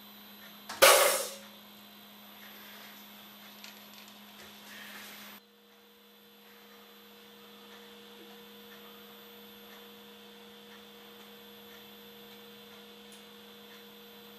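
A brief loud metallic knock about a second in as an 8 mm end mill is fitted into a CNC router's spindle, over a faint, steady electrical hum from the idle machine that drops a little partway through and carries on.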